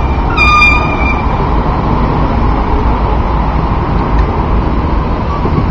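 City street traffic noise: a steady low rumble of passing cars and street noise. A short high beeping tone sounds about half a second in.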